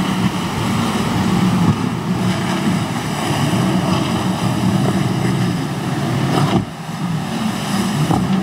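Motorboat engine running steadily under power, a pitched hum with water and wind noise, dipping briefly about six and a half seconds in.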